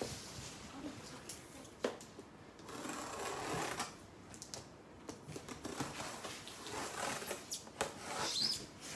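Faint rustling and handling of plastic wrapping and cardboard boxes, with a sharp click a little under two seconds in.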